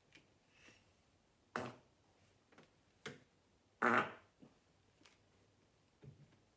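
A man farting: a short sharp blast about a second and a half in, a brief pop near three seconds, then the loudest and longest fart about four seconds in, with a few small pops after.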